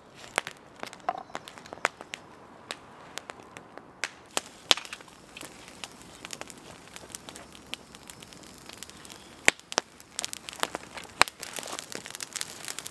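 A knife slicing an onion on a wooden board for the first few seconds, then a wood campfire crackling and hissing with sharp irregular pops.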